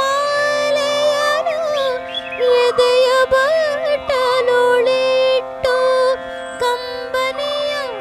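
Indian classical-style music in the Carnatic manner: an ornamented melody that slides between held notes over a steady drone.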